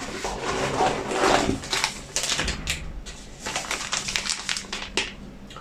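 Plastic packaging crinkling and rustling as baby toiletries are handled, with many irregular crackles and clicks.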